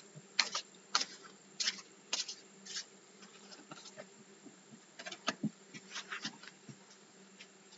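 Tarot cards being handled, with faint, irregular clicks and soft rustles as a card is drawn and turned over.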